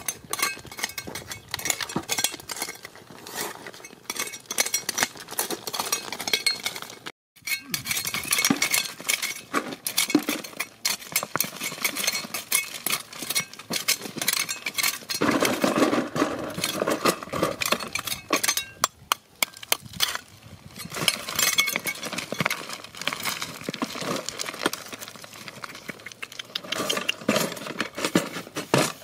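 Stones and gravel clinking and scraping as rocky ground is dug and chipped with hand tools, in a dense, irregular run of clicks and scrapes.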